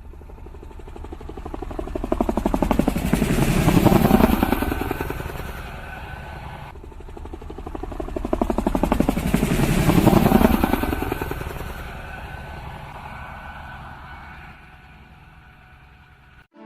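Two vehicles passing close by one after the other: the noise swells to a peak about four seconds in and fades, then a second pass peaks about ten seconds in and dies away.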